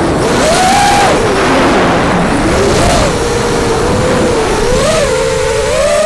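FPV racing quadcopter's motors and propellers whining, the pitch swooping up and down repeatedly as the throttle changes, over a steady rushing noise.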